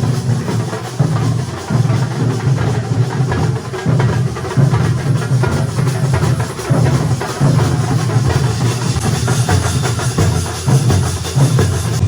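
Loud rhythmic drumming by a percussion band, with heavy low bass-drum beats and dense sharp strikes running on without a break.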